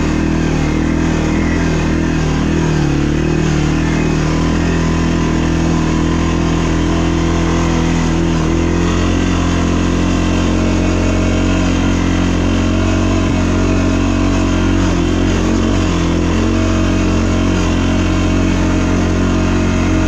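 ATV engine running steadily under way, its pitch wavering up and down in the first few seconds and then holding fairly even.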